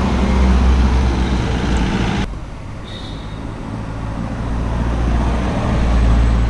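An SUV driving close past on a wet road, with its engine and tyre noise swelling as it passes. The sound cuts off abruptly a little over two seconds in, then builds again to a second close pass near the end.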